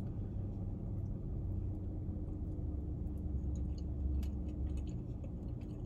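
Steady low hum of a car cabin with the windows shut, under a few faint clicks and scrapes of a metal fork in a small plastic dessert cup.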